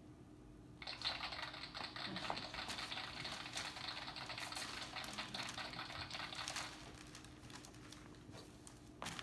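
Newspaper rustling and crackling as a costume made of newspaper is handled and put on: a dense run of crackles for about six seconds, then a single knock near the end.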